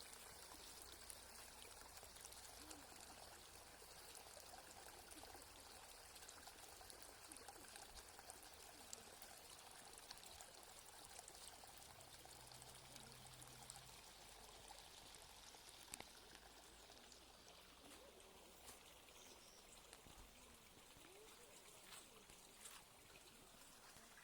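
Faint, steady trickle of running water, with a few soft clicks near the end.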